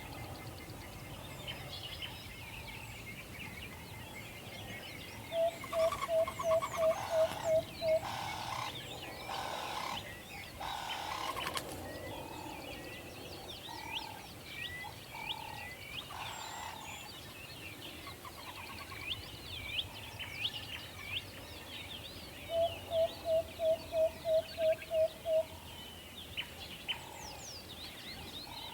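Owl hooting in two quick runs of about eight short, even hoots, the second near the end, over steady high chirping of other night birds. A harsh, rasping call sounds in the middle, between the two runs.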